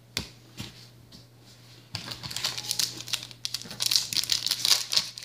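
A trading-card pack wrapper crinkling and tearing as it is opened: a couple of light knocks first, then steady crinkling from about two seconds in, louder near the end.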